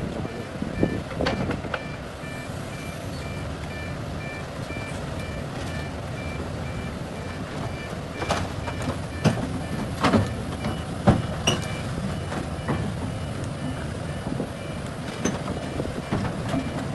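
Heavy machine's engine running with its reversing alarm sounding a steady series of short high beeps. A few sharp metallic knocks come about halfway through.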